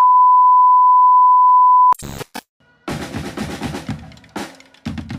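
A steady 1 kHz test-tone beep for about two seconds, broken off by a few short glitchy static clicks. After a brief gap, drum-led music starts about three seconds in.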